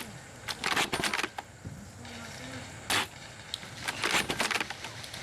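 Airsoft guns firing: two rapid bursts of sharp clicks, about a second in and again near the end, with a single louder crack about three seconds in.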